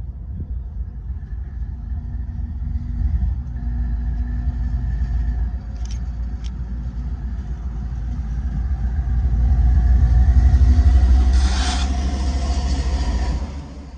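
A lone CSX diesel locomotive running light. Its low engine rumble builds as it approaches and is loudest as it passes close by. There are two sharp clicks about six seconds in and a brief hiss as it goes past.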